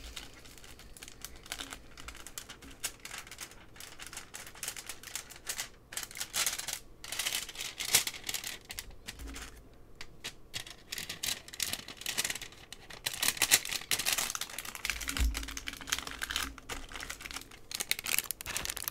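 Clear plastic packaging and card-backed pins being handled: irregular crinkling of plastic with many light clicks and taps.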